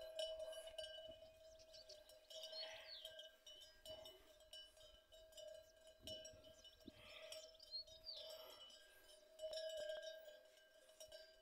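Faint, steady metallic ringing of cattle bells on grazing cows, swelling louder at the start and again about ten seconds in.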